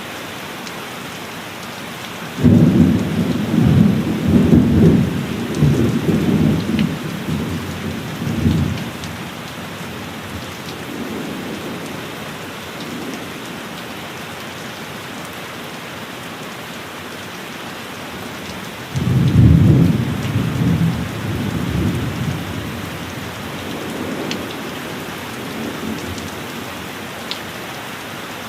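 Steady heavy rain with two rolls of thunder: the first breaks sharply about two and a half seconds in and rumbles for several seconds, the second starts suddenly around two-thirds of the way through and fades more slowly.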